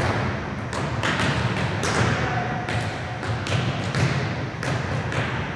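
Volleyballs being served, passed with the forearms and dropping onto a hardwood gym floor: a run of about ten sharp smacks and thuds, echoing in the gym.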